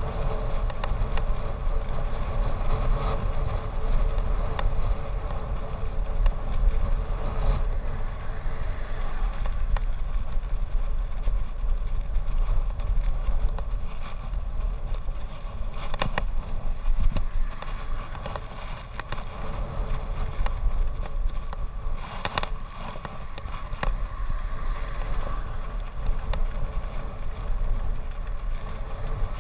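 Wind buffeting the microphone of a camera mounted on a moving bicycle, a steady low rumble with road noise under it, and a couple of sharp knocks in the second half.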